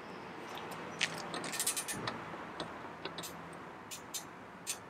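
Ratcheting click-type torque wrench tightening a bolt to about 17 foot-pounds. Its ratchet gives scattered light metallic clicks as the handle is worked, with a quick cluster of clicks about one and a half seconds in.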